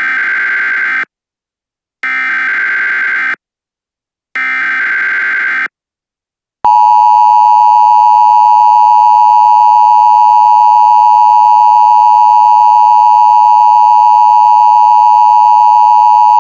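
Emergency Alert System alert opening: three short bursts of shrill, buzzy data tones (the SAME header), each about a second long with a second of silence between, then the loud, steady two-tone attention signal held for about ten seconds before it cuts off.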